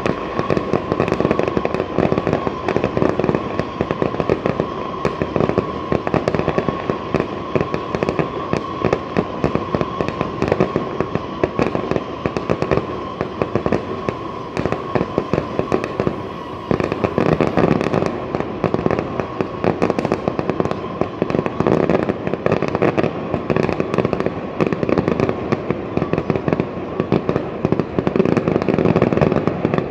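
A fireworks display with rapid, continuous popping and crackling bursts that ease off briefly just past halfway. A steady tone runs underneath.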